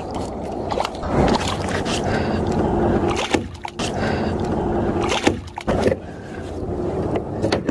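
A hooked smallmouth bass splashing in the water against the side of a kayak as it is landed by hand, with water sloshing and a few sharp knocks from handling against the hull.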